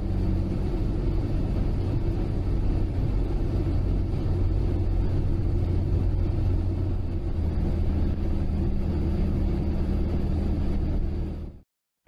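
Steady drone of a car driving at motorway speed: low engine hum with road and tyre noise. It cuts off abruptly near the end.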